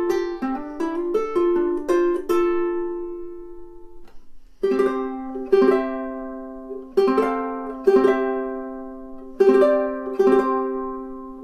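Kala KA-MNGG-T all-solid mango tenor ukulele played solo: a quick run of plucked notes that ends on a ringing note and dies away, then from about four and a half seconds in, slow chords struck about once a second, each left to ring.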